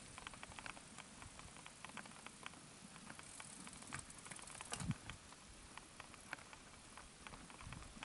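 Mountain bike rolling over a loose gravel track: quiet, irregular clicking and crunching of small stones under the tyres, with one louder knock a little before halfway.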